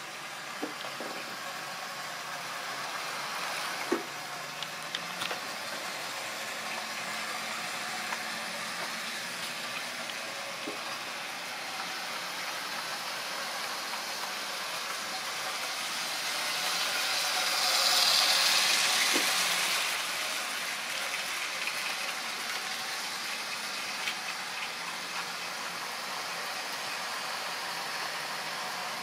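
Tri-ang or Lima model railway locomotives running on track: the small electric motors and wheels whir steadily, with a few sharp clicks. The sound swells louder about two-thirds of the way in, then settles back.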